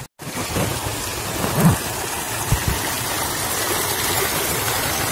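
Small forest stream rushing over rocks: a steady wash of water noise. A couple of brief low thumps come through about one and a half and two and a half seconds in.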